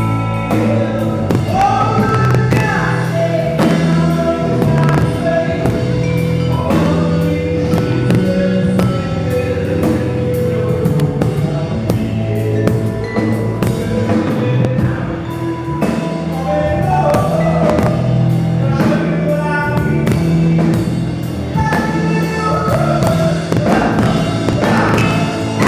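Live band music: drum kit and bass under sustained melodic lines, with singing.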